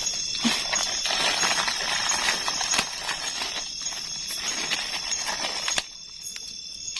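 Dense crackling and crunching of kerupuk (crisp Indonesian crackers) for about five seconds, stopping suddenly near the end, over a steady high-pitched chorus of night insects.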